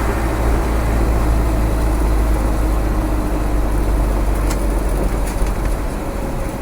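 Land Rover's rebuilt 300Tdi 2.5-litre four-cylinder turbodiesel running under way, a steady low rumble of engine and road noise while driving.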